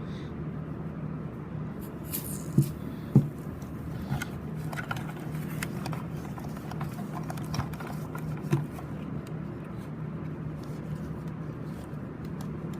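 Scattered knocks and clicks of a plastic fire-alarm horn-strobe unit being handled, the sharpest around two and three seconds in and again past eight seconds, over a steady low hum.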